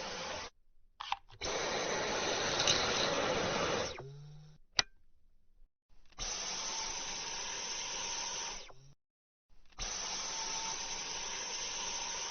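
Cordless stick vacuum cleaner running with a steady whirring hiss, heard in three stretches that start and stop abruptly, with short silent gaps between them. A single sharp click falls between the first and second stretch.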